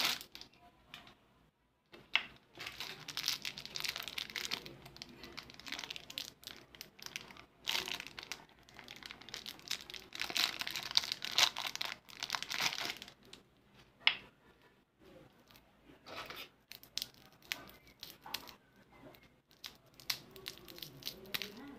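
Clear plastic lollipop wrappers crinkling and tearing in irregular bursts as they are handled and pulled open, with short pauses between.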